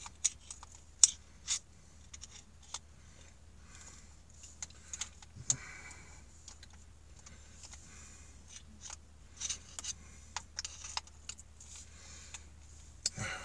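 Scattered small metallic clicks and scrapes, one sharper click about a second in: a screwdriver working at the stubborn flat-head retaining screw inside a Makita drill's quick-release chuck.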